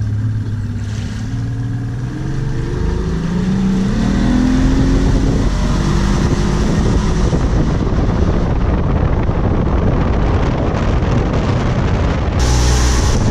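Outboard motor accelerating a small motorboat, its engine note rising over the first few seconds as the boat gets up onto plane, then giving way to a steady rush of wind and water at speed. A short hiss of wind on the microphone near the end.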